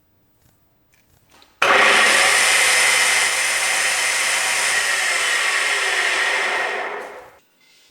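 An electric power tool starts abruptly and runs steadily for about five seconds. It then switches off and winds down, its pitch falling as it stops.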